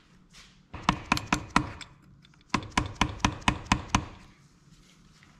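Small hammer tapping a chisel against the locking tab washer on a motorcycle clutch nut, bending the safety tabs away from the nut. Two quick runs of sharp taps: about five, then about eight.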